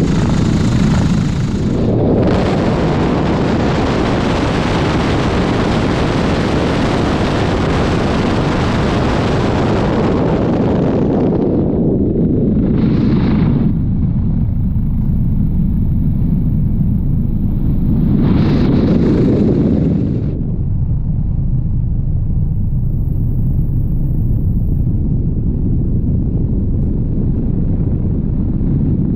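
Helicopter in flight: a steady low rumble from the aircraft, overlaid by heavy wind buffeting on the microphone. The buffeting is strongest through the first third and returns in two shorter gusts later on.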